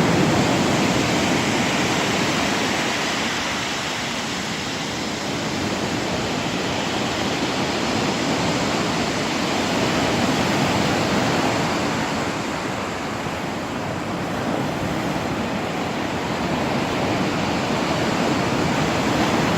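Black Sea surf washing onto the shore: a steady rush of waves that swells and eases slowly, loudest near the start and again around the middle and end.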